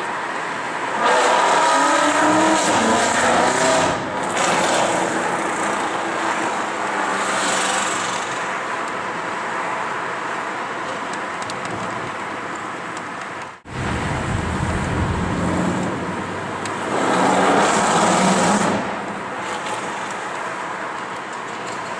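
Mercedes SLS AMG's 6.2-litre V8 with a Supersprint aftermarket exhaust, heard from a following car, revving hard in two loud bursts: one about a second in that lasts some three seconds, with the pitch climbing and falling, and another later that lasts about two seconds. Between the bursts there is steady engine and traffic noise, broken once by a sudden short cut-out about two-thirds of the way through.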